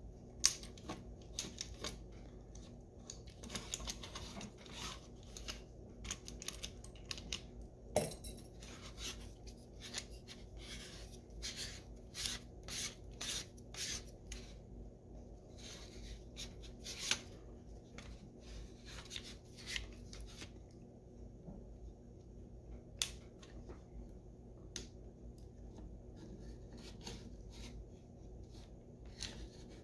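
Clicks, taps and scraping of AR-15 stock and receiver parts being handled and fitted together by hand, busy for the first twenty seconds or so, then only a few scattered clicks.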